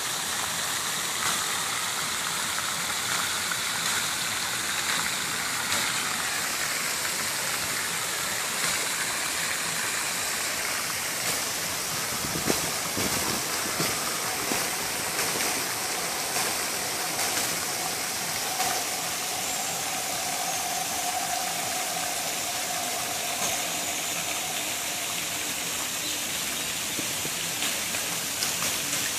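Floating pond fountain spraying, a steady splashing rush of falling water.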